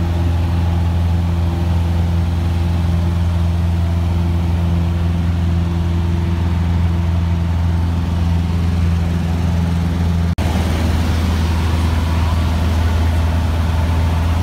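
Cessna 150's four-cylinder Continental O-200 engine and propeller droning steadily in cruise flight, heard inside the cabin. About ten seconds in the sound cuts out for an instant, then the drone carries on with more wind hiss over it.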